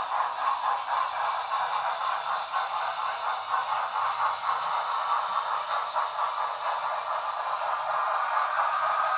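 Sound of an HO scale model steam locomotive chuffing as it pulls its train away, played through the model's small onboard speaker: a thin, hissy run of quick chuffs.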